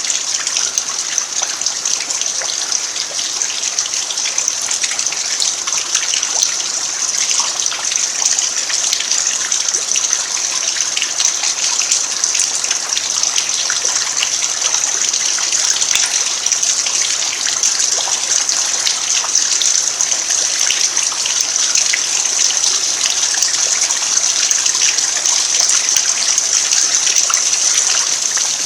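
Steady rain falling on a dirt yard: a constant high hiss with many small drop taps throughout.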